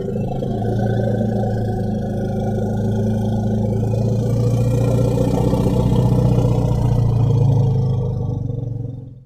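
Elephant giving a long, low rumbling growl with a fluttering texture, swelling slightly midway and fading out near the end.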